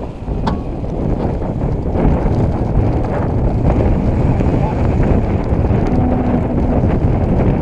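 Strong wind buffeting the microphone: a loud, low rushing rumble that builds over the first couple of seconds and then holds. There is a brief sharp click about half a second in.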